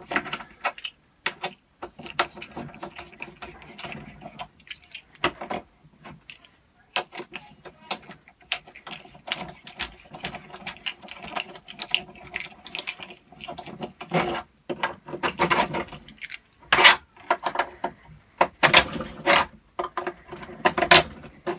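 A steel bolt worked by hand and with an Allen key through painted bolt holes to ream them clear: irregular metallic scraping, clicking and rattling, busier and louder in the second half.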